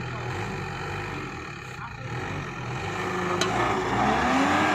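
Jeep CJ7 engine running under load off-road, getting louder about three seconds in, its pitch rising and then falling as it revs.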